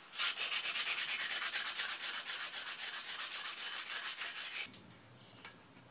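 Hand-sanding a steel bicycle frame tube to strip its old paint: quick, even back-and-forth strokes making a rasping hiss. The strokes stop suddenly about four and a half seconds in.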